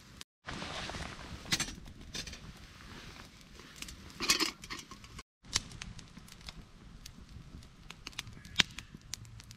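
Wood campfire crackling and popping, with one sharp pop near the end. About four seconds in comes a short clatter of metal as a pot support and pot are handled over the fire.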